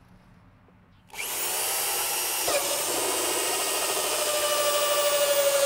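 Drill fitted with a 1½-inch hole saw starting about a second in and cutting a hole through the plastic wall of a drywell tank, running steadily at full speed.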